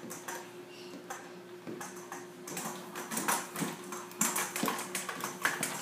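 A plastic wheeled push toy clicking and clattering as it is pushed along a hardwood floor, the irregular clicks getting quicker and louder about halfway through, over a faint steady hum.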